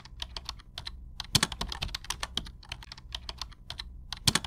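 Keyboard typing sound effect: quick, irregular key clicks over a faint low hum, one click after another as each letter of the title appears.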